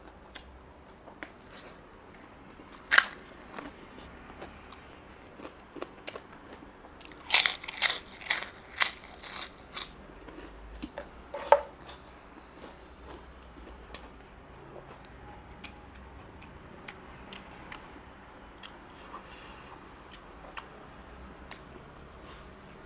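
Close-miked eating: quiet chewing and mouth clicks, broken by a sharp crunch about three seconds in and a run of loud crunches from about seven to ten seconds in, with one more near the middle.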